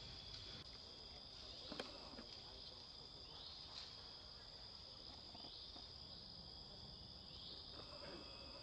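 Faint, steady high-pitched insect song, with short rising chirps recurring every two seconds or so. A single sharp click about two seconds in.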